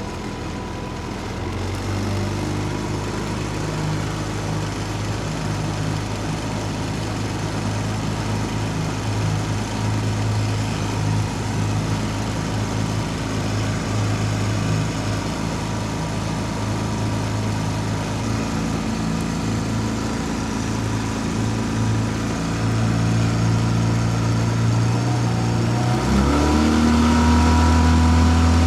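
A 15 HP four-stroke outboard motor running steadily, freshly started and not yet warmed up. About 26 seconds in the engine note shifts and gets louder as the engine speed changes, then holds steady.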